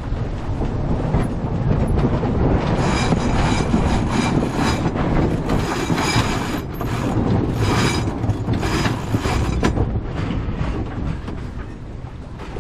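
Sailboat sheet winch being cranked during a tack, ratcheting and whirring in repeated bursts over the rush of wind and water.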